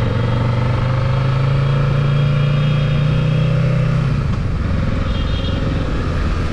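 Kawasaki Ninja 650's parallel-twin engine pulling the bike along, its pitch rising slowly for about four seconds, then dropping.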